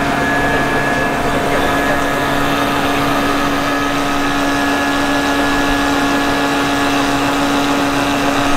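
Flood-control pumping station machinery running: a loud, steady mechanical hum with a constant drone tone.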